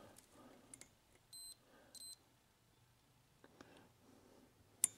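Two short, high-pitched beeps from a digital multimeter, about half a second apart, during a check for shorts. A sharp click comes near the end.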